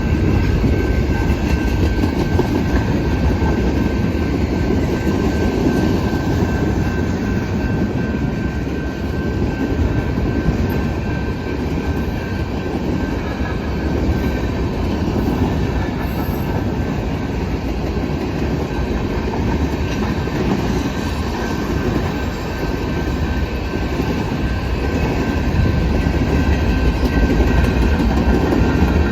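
Freight cars of a Canadian Pacific manifest train rolling past: a loud, steady rumble of wheels on rail with a faint thin whine running through it.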